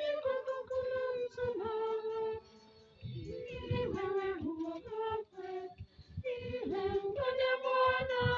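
High voices singing a hymn in held notes, with a short break about two and a half seconds in.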